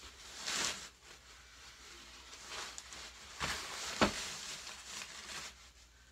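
Fabric rustling and handling noise as a padded bassinet insert is pressed down and smoothed into a playard frame, in several soft swishes, with one sharp knock about four seconds in.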